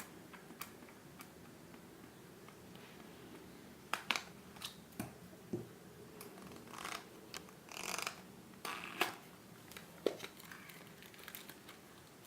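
An earphone box being opened and unpacked by hand: scattered clicks and taps with short rustles of packaging, mostly in the second half.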